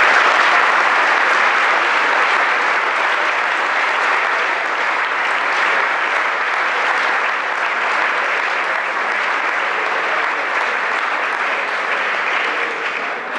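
Audience applauding: steady, dense clapping from a hall full of people, easing slightly near the end.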